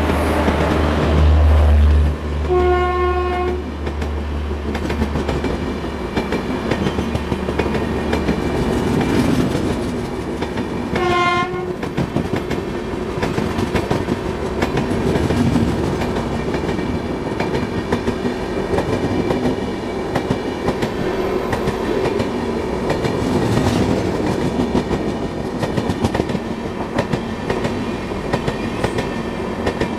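Karnavati Express train on the move: a heavy low rumble at first, then two horn blasts, a longer one about three seconds in and a shorter one about eleven seconds in. Steady rumble and clatter of the coaches rolling over the rails follows.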